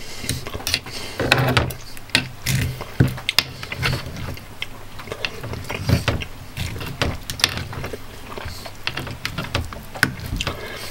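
Knife and fork cutting through a flaky puff-pastry pie crust, with crackling pastry and cutlery clicking and scraping against the metal pie dish. It is a run of many irregular sharp clicks over dull low knocks.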